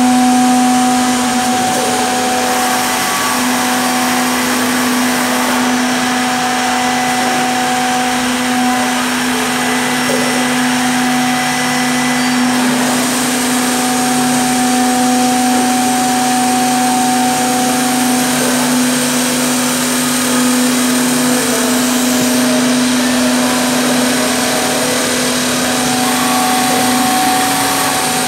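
Zhan Fei SDC-1500 CNC mortising machine running, its spindle motors giving a steady hum with fainter higher tones over a constant hiss.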